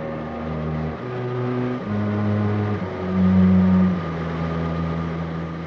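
Background music of low held notes that step to a new pitch about once a second.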